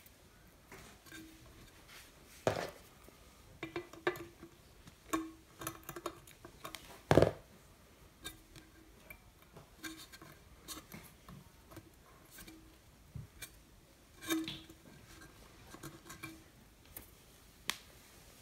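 Scattered small clicks and taps of a plastic fuse holder and stiff wire being handled against a sheet-metal transformer case, with one louder knock about seven seconds in.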